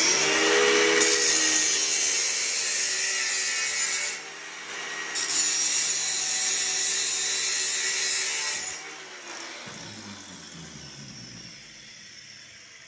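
Angle grinder's cutting disc slicing through a metal mounting plate, a dense grinding noise over the steady tone of the motor. The cut eases off for about a second around four seconds in and resumes. Near nine seconds in the disc leaves the metal and the grinder winds down.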